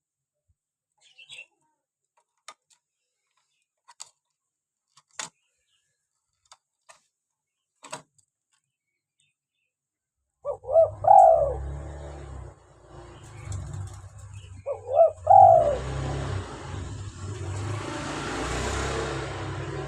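A spotted dove (tekukur) cooing: two cooing phrases about four seconds apart, over a low hum and background hiss. They follow about ten seconds of near silence broken by a few faint clicks.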